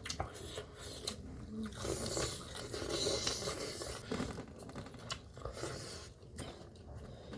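Eating sounds close to the microphone: chewing and biting into food, with scattered clicks and scraping.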